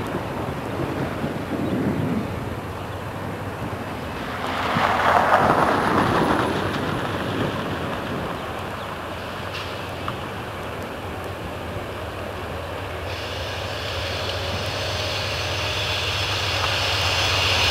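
Approaching train on a sharp curve, still out of sight: a low rumble and a high hissing sound come in about two-thirds through and grow louder towards the end. A louder rush of noise comes through about five seconds in.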